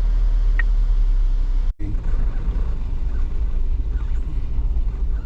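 Road noise of a vehicle driving along a dirt track: a steady low rumble. It cuts out briefly about two seconds in.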